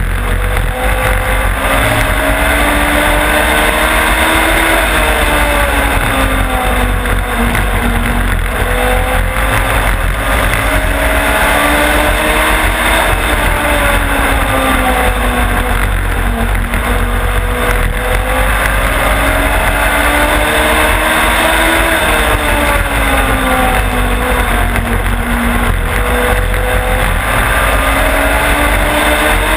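Onboard sound of a short-track race car's engine at racing speed, its pitch climbing and falling back in repeated swells a few seconds apart as it accelerates and lifts through the laps, over steady wind and road noise.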